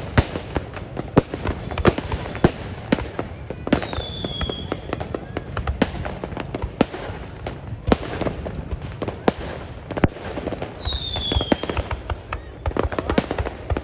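Fireworks going off in quick succession: many sharp bangs and crackles, with two high whistles falling in pitch, about four seconds in and again near eleven seconds.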